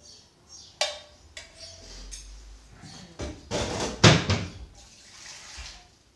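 Dishes and cutlery clattering as food is served: a sharp clink about a second in, then a louder rattle and knock of plates and utensils near the middle.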